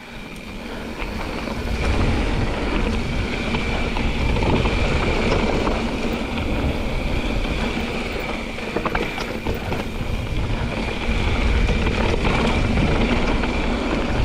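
Mountain bike descending a dirt trail: wind buffeting the camera microphone and knobby tyres rumbling over the ground, with scattered rattles and clicks from the bike over bumps. The rumble grows over the first two seconds as speed builds, and a steady high tone runs underneath.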